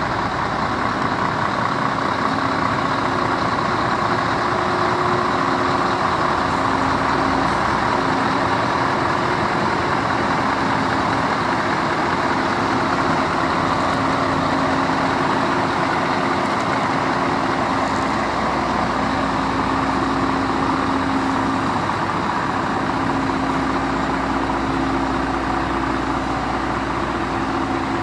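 Several Scania heavy trucks' diesel engines idling together, a loud, steady sound with no revving.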